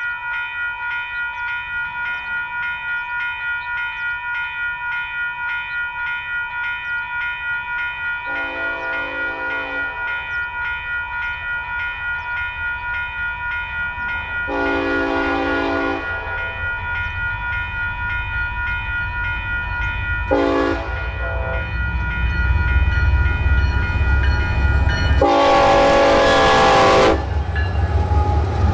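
Grade-crossing warning bell ringing steadily while an approaching diesel freight locomotive sounds its horn for the crossing in the standard pattern: long, long, short, long. The low rumble of the locomotives' engines and wheels builds under the last blast as the train reaches the crossing.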